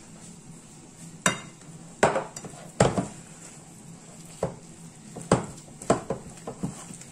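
Wooden spoon working stiff flour-and-egg noodle dough in a ceramic bowl, knocking against the bowl's side at irregular intervals, with soft stirring between the knocks.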